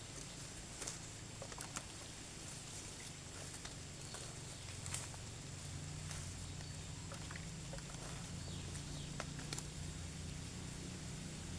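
Scattered light snaps and rustles, like footsteps and handling in dry leaves and undergrowth, over a faint steady low hum that grows louder from about halfway through.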